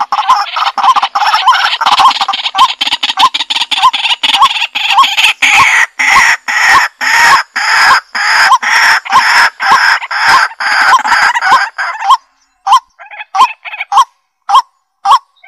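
Flock of domestic fowl calling: a dense chorus of short, rapidly repeated calls that thins out to scattered calls with brief silences after about twelve seconds.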